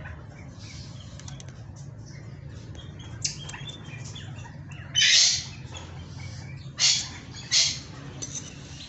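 Scissors snipping through jade bonsai branches: three crisp cuts, about five, seven and seven and a half seconds in, over a faint steady low hum.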